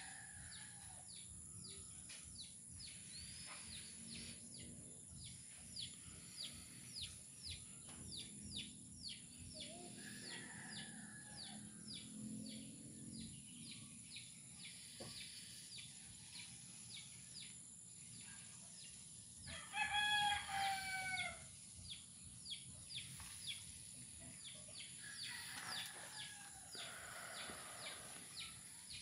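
Quiet outdoor ambience of quick, repeated chirps over a steady high hum, with a rooster crowing once about twenty seconds in, the loudest sound.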